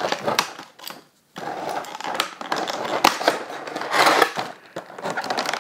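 Stiff clear plastic toy packaging crinkling and crackling as it is handled and pulled open, full of small clicks and snaps, with a brief pause about a second in.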